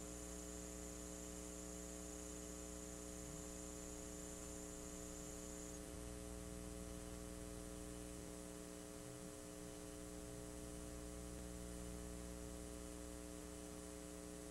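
Steady low electrical mains hum over faint tape hiss, with no programme sound: the blank, no-signal stretch of a VHS tape playback. A faint high whine stops about six seconds in.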